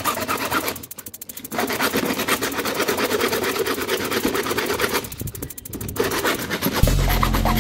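Hacksaw sawing through the plastic housing of an RO water-purifier filter cartridge: fast, even back-and-forth rasping strokes, stopping briefly twice. Background music comes in near the end.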